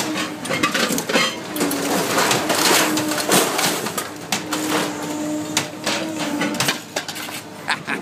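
Excavator's orange-peel grab tearing apart a refrigerator's stainless-steel shell: repeated metal clanks, crunches and scraping, busiest a couple of seconds in, over the steady hum of the machine.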